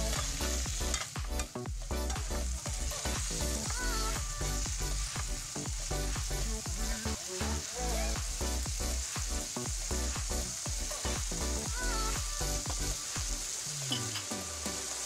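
Shrimp sizzling in hot oil in a frying pan as they are stirred. Background music with a steady beat plays underneath.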